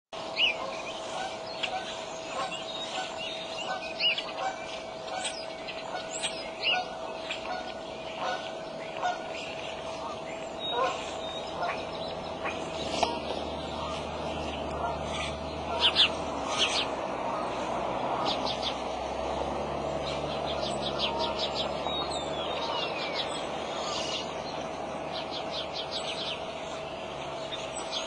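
Small wild birds chirping and trilling throughout, over a steady faint hum. Around the middle a bald eagle beats its wings and moves against the stick nest, giving a few sharp thwacks and a low rustling that carries on to the end.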